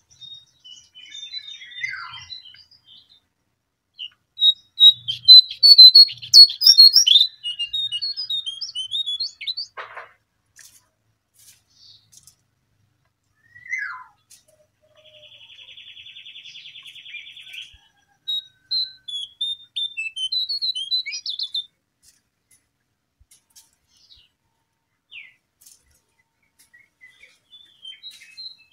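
Jongkangan (cingcoang coklat) songbird singing in bursts of high, rapid twittering phrases, loudest from about four to seven seconds in, with a few falling whistles. About halfway there is a steady buzzing trill, and another twittering phrase follows it.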